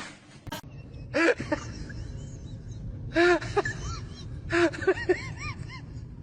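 An animal's short, high calls, each rising and falling in pitch: single calls, then a quick run of several near the end. A sharp click comes just before the first call.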